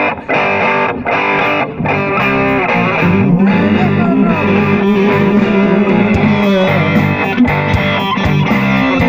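Live band with distorted electric guitar, bass and drums. It plays a few short chords with breaks in the first two seconds, then plays on continuously, with a held, wavering guitar note in the middle.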